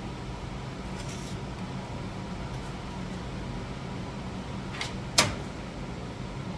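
Steady low background hum with a few faint clicks, then one sharp knock a little after five seconds in.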